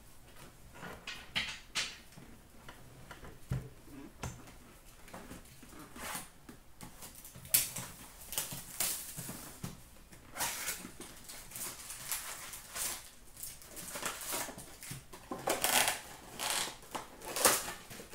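An Upper Deck retail box of hockey card packs being opened and its foil packs handled and stacked on a glass counter: cardboard and wrapper rustling, scraping and light taps. The handling is sparse at first and gets busier from about six seconds in.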